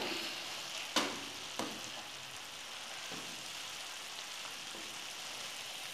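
Chopped leafy greens sizzling in a frying pan as a steady hiss. Two light knocks about a second and a second and a half in come from the wooden spoon stirring against the pan.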